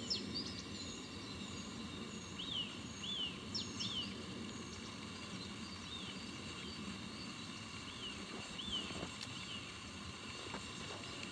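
Small birds calling in a forest: short, arched chirps repeated every second or so, mixed with thin, higher notes. Beneath them is a steady low background hiss.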